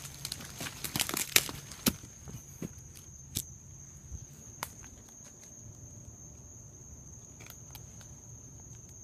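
Crickets trilling as one steady high tone throughout. Footsteps crunch and brush crackles through dry vegetation for the first two seconds, then a few scattered snaps of twigs follow.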